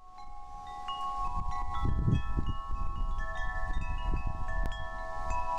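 Wind chimes ringing, with many tones struck one after another and left to ring together, over a low, uneven rumble of wind.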